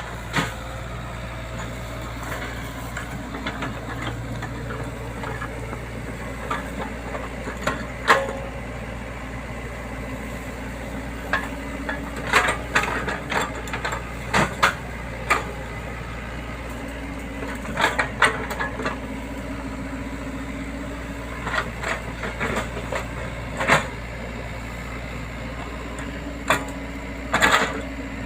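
Hydraulic excavator's diesel engine running steadily, with irregular knocks and clatters through it as the machine works the ground.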